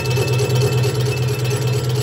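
Engine lathe running, spinning a Porsche 964 cylinder head clamped in its custom aluminium fixture: a steady low hum that pulses evenly, with a faint high whine above it.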